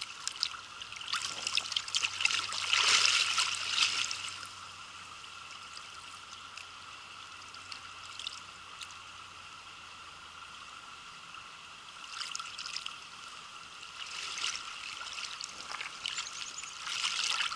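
Shallow creek water trickling past a camera set at the surface. From about one to four seconds in, hands and a brown trout splash in the water as the fish is released, and wading boots splash through the stream near the end.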